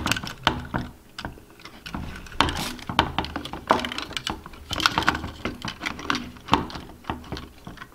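Irregular small clicks, taps and rustling scrapes of hands handling an opened plastic remote controller, pushing antenna cables through its top opening.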